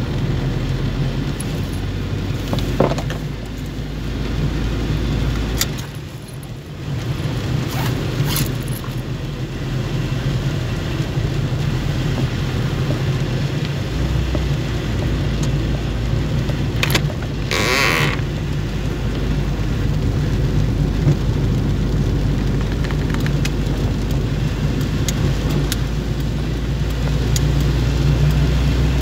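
Car interior while driving in heavy rain: steady engine and road hum under an even hiss of rain on the windshield, with a few short clicks and a brief louder rush about two-thirds of the way through.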